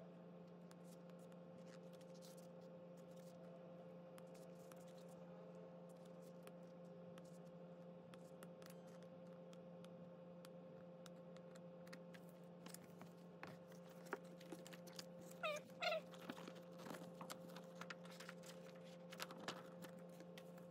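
Photobook pages being turned by hand, with soft paper rustles and clicks over a steady hum. About fifteen seconds in and again near the end come a few short, high calls that glide up and down.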